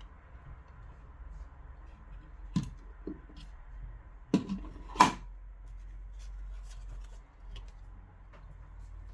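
Small plastic speaker parts being handled and fitted back together: a few sharp clicks and knocks about two and a half to five seconds in, the last the loudest, among faint ticks and rustles.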